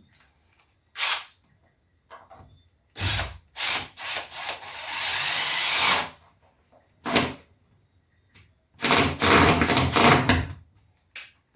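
A power drill or driver runs in several short bursts and one longer run of about a second and a half that grows louder. It is driving fasteners to secure an electrical wire in place.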